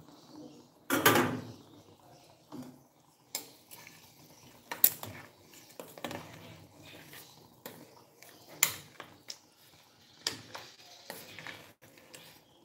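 A metal ladle knocking and scraping against a stainless steel cooking pot as papaya pieces are stirred in broth: scattered sharp clinks a second or so apart, with a louder clank about a second in.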